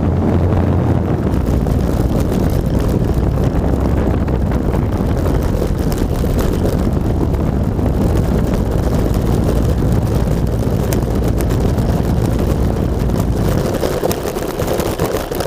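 Wind rushing over an onboard camera on a ParkZone T-28 Trojan RC plane in flight, mixed with the steady running of its electric motor and propeller. The noise eases near the end.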